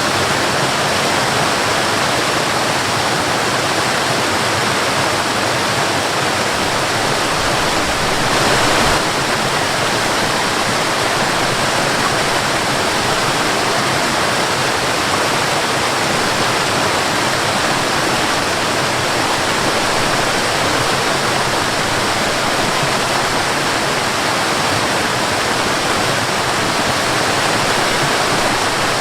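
Waterfall: a steady, dense rush of falling water, swelling briefly a little louder about eight seconds in.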